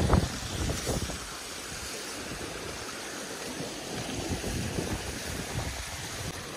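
A rocky stream rushing, a steady hiss, with wind buffeting the microphone in the first second.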